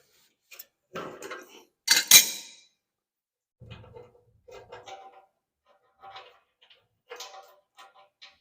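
Metal hardware and tools clinking and clattering while the saw's sliding table is being fitted: two sharp clanks about a second apart, then a string of lighter, ringing metal taps.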